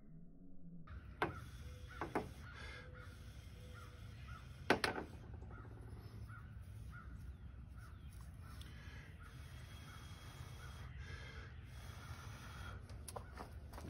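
Crows cawing over and over in the background, a short call about every half second to second. A few sharp knocks cut through about a second and two seconds in, with the loudest near five seconds in.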